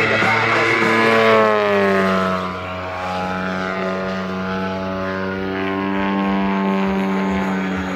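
Propeller engine of a model aerobatic airplane running in flight. Its pitch falls a second or two in, then holds steady.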